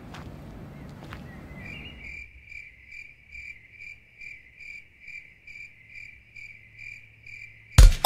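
Cricket chirping, about two and a half chirps a second, laid in as a sound effect after the outdoor background cuts out abruptly about two seconds in. Loud electronic music bursts in right at the end.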